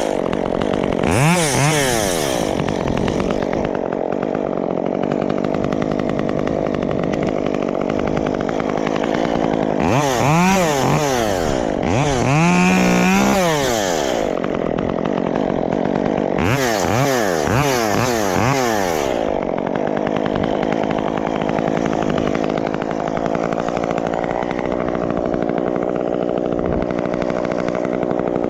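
Two-stroke chainsaw running at idle, revved up and back down in four short bursts over the first two-thirds, then idling steadily.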